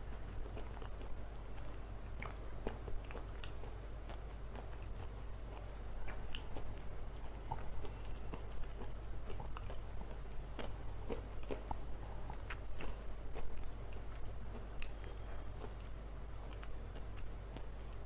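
Close-miked biting and chewing of a hard, crunchy edible black stone, with many small sharp crackles and crunches at an uneven pace, over a steady low hum.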